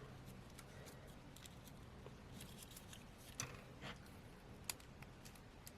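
A few faint, sharp clicks and taps of a smartphone's flex-cable connector being lined up and pressed onto its board socket, over near silence.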